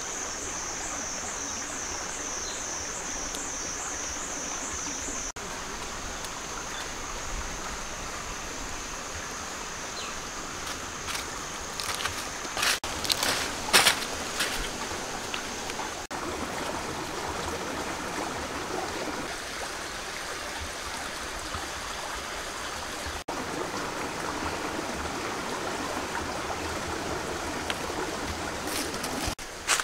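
Shallow stream running over rocks, a steady rushing. A high pulsing whine sounds over it at the start and fades out, and a few seconds before the middle there is a short cluster of crackles from dry leaves crunching under bare feet.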